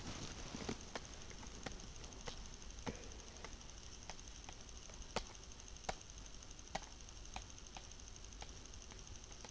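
Faint, slow clicks of computer keys tapped one at a time, about one or two a second at uneven intervals.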